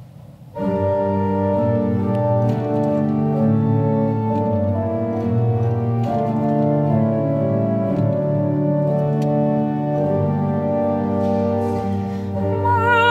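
Pipe organ playing sustained chords of a hymn, starting about half a second in. Near the end a woman's voice enters, singing with vibrato over the organ.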